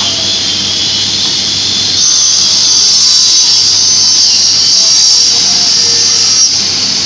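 Sliding-table panel saw running with a steady high whine. About two seconds in it grows louder and brighter as the blade cuts through a plywood panel, then eases back shortly before the end as the cut finishes.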